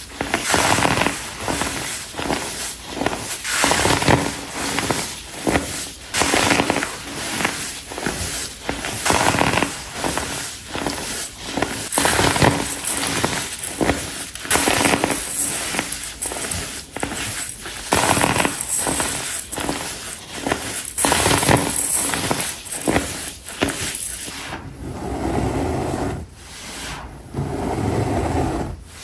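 Pressed baking soda blocks being crushed: a dense, irregular run of crisp crunches and crackles. About four seconds from the end the crunching gives way to softer crumbling and rubbing of the powder.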